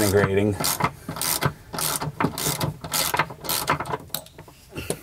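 Ratchet wrench clicking in repeated short strokes as the top-mount nut of a BMW E36 M3 rear shock is undone.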